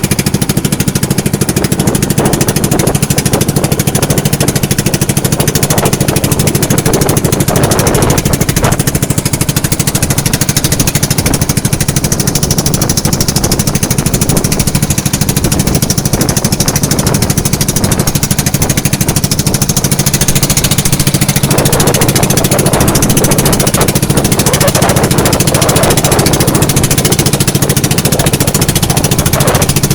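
A small engine running steadily at an even pitch, with a steady rushing noise over it.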